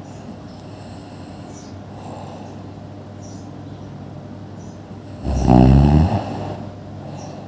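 A person snoring: one loud, low snore about five seconds in, lasting about a second, with quieter high whistling breath sounds before it.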